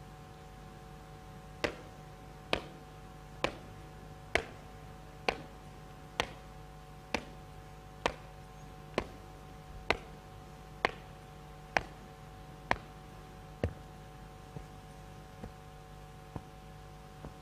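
Hard-soled parade shoes striking pavement in a slow, even marching cadence, a sharp click about every second. About fourteen seconds in the steps turn much fainter as the marcher reaches grass. A faint steady hum runs underneath.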